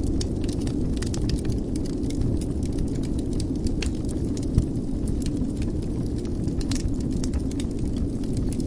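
Wood fire burning in a fireplace: a steady low rumble with frequent small crackles and snaps, and one louder pop about halfway through.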